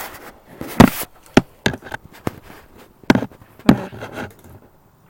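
Sharp clicks and snaps from a spring-powered Beretta-style BB pistol being cocked and fired. The loudest snap comes a little under a second in, and a strong pair follows about three seconds in.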